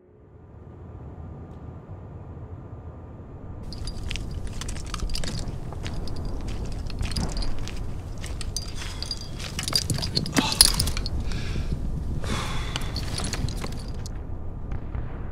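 Footsteps crunching on gravel, starting about four seconds in and coming in irregular steps with louder clusters later, over a steady low rumble.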